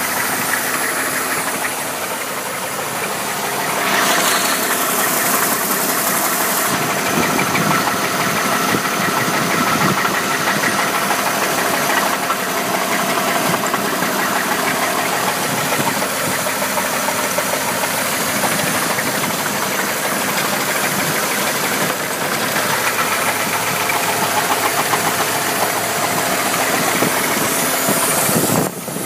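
Chevrolet Impala's 3.8-litre V6 running steadily with a rapid, repeating knock from the top end, which the owner links to the rockers.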